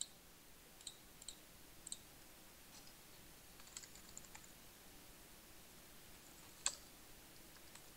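Faint computer mouse clicks and keyboard keystrokes: a dozen or so scattered single clicks, the loudest one about two-thirds of the way through.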